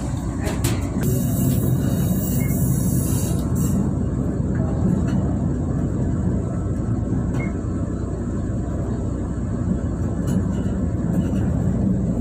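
Diesel railcar running along the track, heard from inside the rear car: a steady rumble of the train underway, with a few sharp clicks and a brief hiss about a second in.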